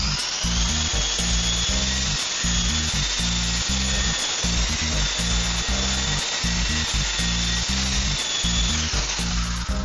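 Antique Honey Bee electric RC helicopter running, its motor and rotor giving a high whine that finishes climbing in pitch just after the start, holds steady, and drops away near the end. Background music with a steady beat plays underneath.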